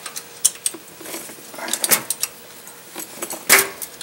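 A wrench loosening the small lock bolt that holds the cross pin in an open rear differential: a run of irregular metallic clicks and clinks, the loudest about three and a half seconds in.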